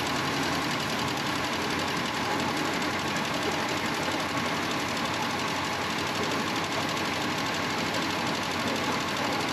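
1966 Oldsmobile Toronado's 425 cubic-inch V8 idling steadily just after starting, with a fast, even ticking clatter running through it.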